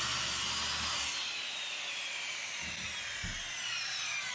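Electric power saw cutting through a wooden board, its high whine falling steadily in pitch from about a second in, with a few low knocks toward the end.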